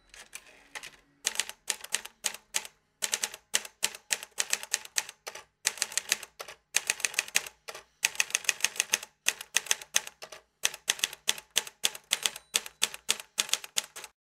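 Typewriter keys clacking in quick runs of strikes, one per letter, with short pauses between words and lines.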